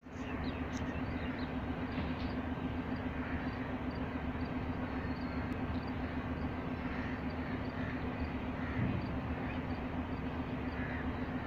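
Steady drone of a diesel locomotive's engine running as the train backs slowly toward the platform, with birds chirping over it.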